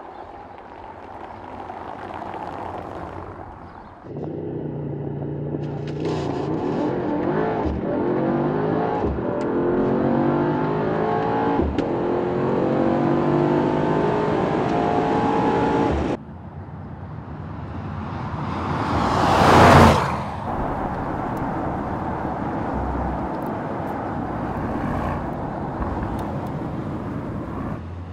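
Mercedes-AMG GT 63 S E Performance's 4.0-litre twin-turbo V8 under hard acceleration, its note climbing again and again with quick upshifts. After that, the car swells up to a loud pass-by about twenty seconds in, then runs on steadily.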